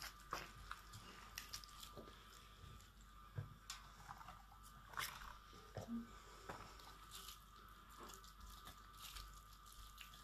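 Quiet, scattered soft squishes and small clicks of plastic-gloved hands scooping moist rice stuffing and pressing it into a hollowed-out zucchini.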